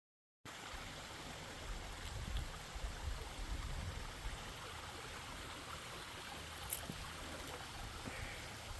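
Steady rush of falling water from a waterfall, heard at a distance as an even hiss. It starts abruptly about half a second in.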